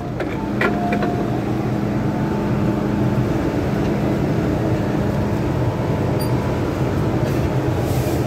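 Steady hum of an MTR M-Train standing at a station platform with its doors open, with a few short clicks in the first second.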